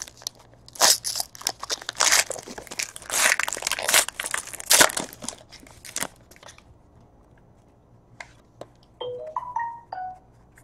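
Foil trading-card pack wrapper being torn open and crinkled by hand, a dense crackling for about six seconds, then quiet apart from a few faint short high notes near the end.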